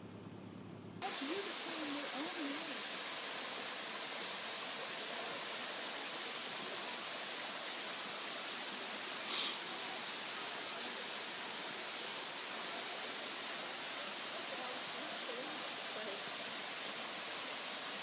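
Waterfall and creek water rushing in a steady, dense hiss, starting suddenly about a second in.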